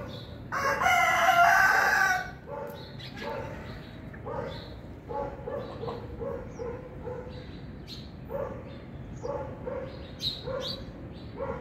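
An animal call, loud and drawn out for about a second and a half, followed by a long run of short repeated calls, about two a second.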